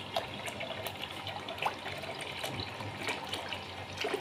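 A stream of water pouring into a plastic basin of water, a steady trickling and splashing with many small sharp splashes and drips scattered through it.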